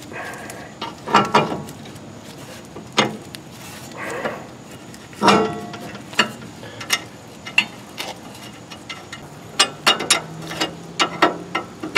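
Outer tie rod end being fitted into the steering knuckle of a 1966 Pontiac LeMans and its nut tightened with a wrench: scattered metal knocks and clicks, one louder knock about halfway, then a quicker run of wrench clicks near the end.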